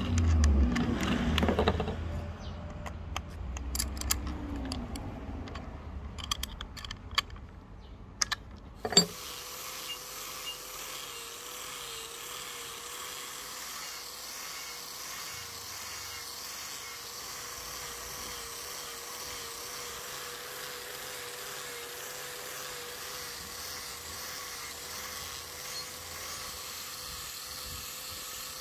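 Angle grinder with a red abrasive cleaning disc running steadily against a rusty steel axe head, taking rust off the surface, with a slightly wavering whine over a hiss. It starts abruptly about nine seconds in, after an uneven low rumble with a few sharp clicks and knocks.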